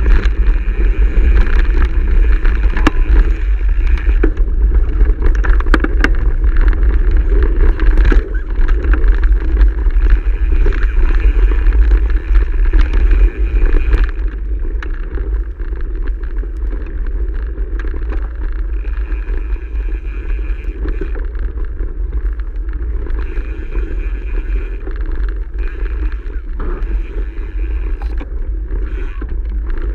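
Mountain bike riding down a rough gravel trail: tyre rumble and rattling knocks from the bike over stones, with wind buffeting the camera microphone. About fourteen seconds in, the clatter drops away and the riding noise settles lower and smoother.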